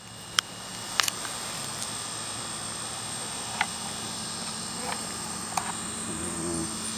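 A beagle snoring once near the end, a short buzzing snore over a steady high-pitched whine. There are two sharp clicks in the first second and a few faint ticks between.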